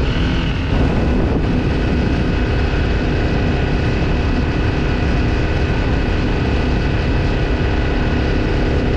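Motorcycle engine running steadily while riding along, with wind noise rushing over the handlebar-mounted camera's microphone.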